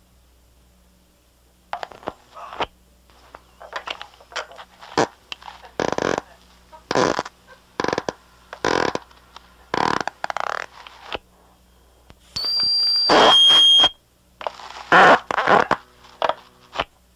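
A string of short fart sounds played back from a cassette tape, starting about two seconds in and coming every second or so, some with a buzzing pitch, over a faint low hum. About two-thirds of the way through a loud steady high-pitched tone sounds for over a second.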